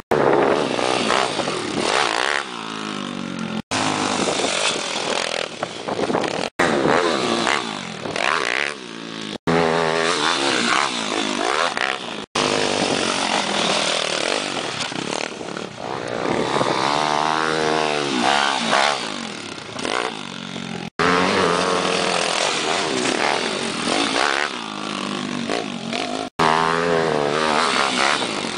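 Small pit bike engines revving up and down as the bikes are ridden over a dirt track. The sound comes in a string of short clips, broken by abrupt cuts every few seconds.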